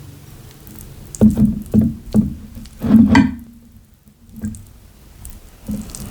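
Music with plucked, guitar-like notes, starting a little over a second in and dropping out for about a second just past the middle.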